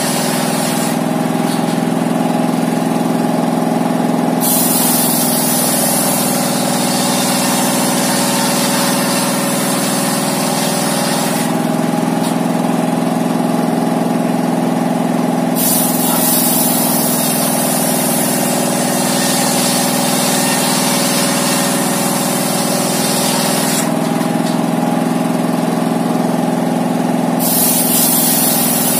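Single-cylinder 'dompeng' diesel engine running steadily under load, belt-driving a homemade circular saw bench. The spinning blade adds a high hissing rasp that comes and goes several times as planks are pushed through it.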